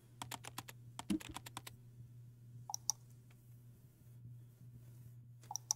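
Computer keyboard typing: a quick run of keystrokes in the first couple of seconds, then a few scattered clicks, over a faint steady low hum.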